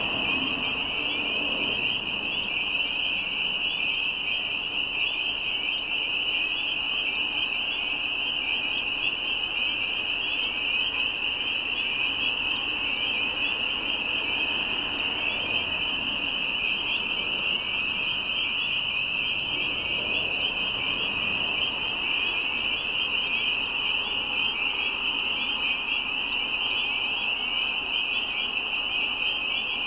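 Dense chorus of spring peepers: many high, short, rising peeps overlapping into one continuous, even chorus.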